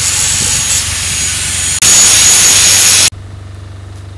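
Electric arc torch working on steel pipe, a loud steady hiss with a brief break near the middle, stopping abruptly about three seconds in.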